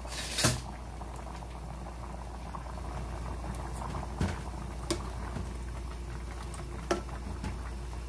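Pot of Korean-style chicken stew in red sauce bubbling at a steady boil in a stainless steel pot. A ladle clicks against the pot a few times as it is stirred, loudest just after the start.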